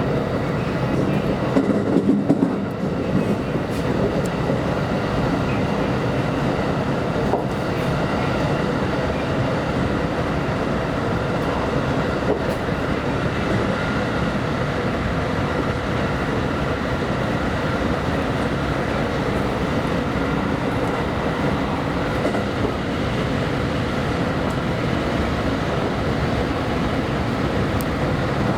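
JR West Special Rapid Service electric train running steadily along the track, wheels clicking over the rail joints, with a faint steady hum over the running noise.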